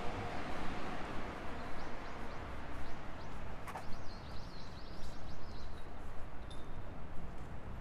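Steady city street noise with a rapid run of high chirps lasting a few seconds, and a single sharp click near the middle.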